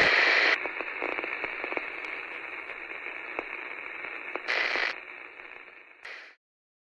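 Radio static: a loud hiss that drops off about half a second in, then fainter crackling hiss with a short louder burst about four and a half seconds in, fading and cutting off suddenly just after six seconds, as the broadcast goes off the air.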